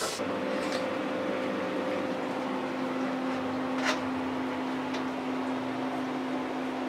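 A steady machine hum with a low tone, starting suddenly, with a single sharp click about four seconds in.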